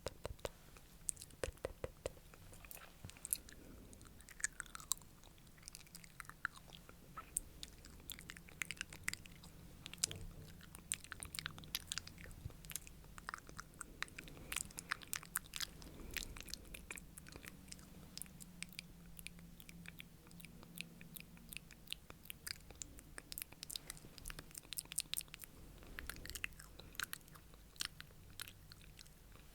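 ASMR mouth sounds close to the microphone: rapid wet clicks and smacks of the lips and tongue, several a second.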